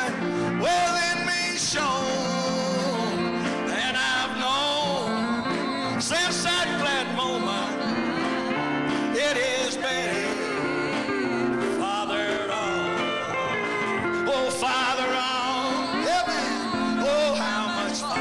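A man singing a slow gospel song with vibrato through a handheld microphone, with piano accompaniment.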